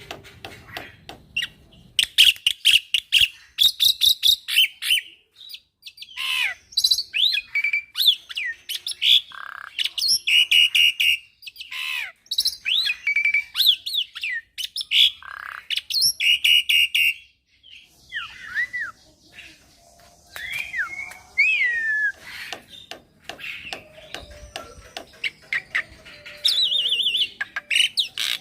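Young black-winged myna (jalak putih) singing a varied song. It mixes fast runs of repeated chattering notes with sharp whistles that slide up and down, in bursts separated by short pauses.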